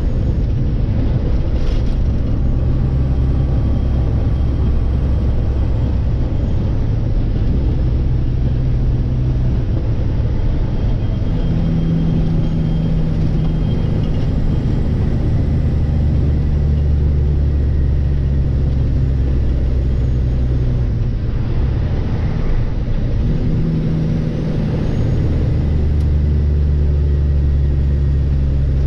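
Kenworth W900 semi truck's diesel engine and road noise heard from inside the cab while driving: a steady low drone. The engine note changes pitch about 11 seconds in, and again about 23 seconds in after a brief dip.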